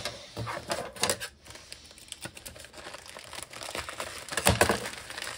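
Packaging rustling and crinkling as a package is opened by hand, with irregular crackles and clicks and a louder knock about four and a half seconds in.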